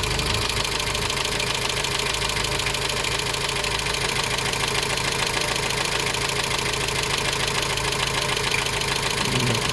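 Dacia 1310's four-cylinder petrol engine idling steadily with a fast, even knock that new bearings have not cured. The owner suspects piston slap or the piston pin.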